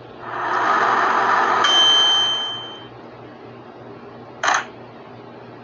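Microwave oven humming as its timer runs out, then a single bell ding about a second and a half in that rings on for about a second. A short click follows about four and a half seconds in.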